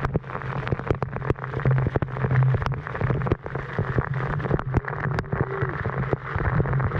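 Waterfall pouring down close by: a loud, steady rush of falling water with a low rumble and many sharp splash clicks throughout.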